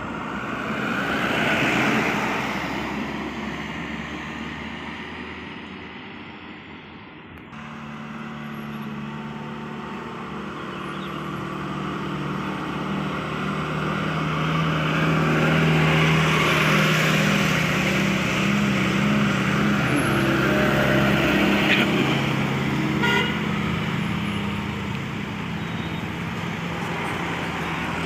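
Road traffic passing close by: one vehicle goes by early on, then the low, steady drone of a heavy diesel vehicle grows louder, is loudest past the middle, and fades as it passes.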